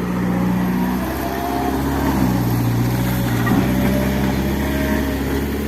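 Excavator's diesel engine running steadily, its note shifting a little as the machine works, with a thin whine above it in the middle.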